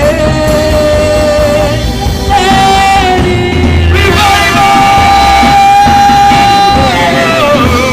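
Live worship music: a singer holds long, wavering sung notes over a full band, the longest note held for about two and a half seconds in the middle before sliding down.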